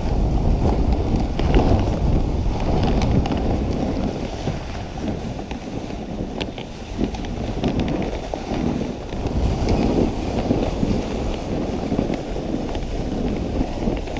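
Dog sled running along a snow trail: the runners rasping on the snow, with wind rumbling on the microphone.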